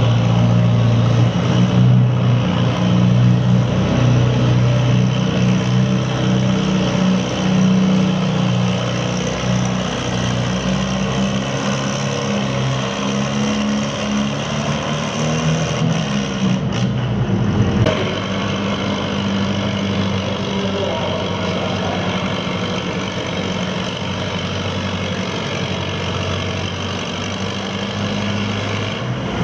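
Antique Farmall tractor engine working hard under load as it pulls the weight sled, a loud steady low engine note. About 18 seconds in it gives way to a somewhat quieter, steadier engine running.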